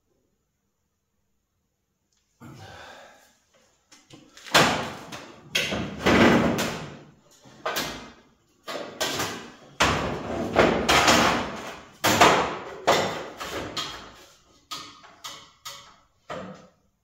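A series of about a dozen irregular metal knocks and clatters from hand sheet-metal work, each dying away within a second. They begin a couple of seconds in, after a moment of dead silence.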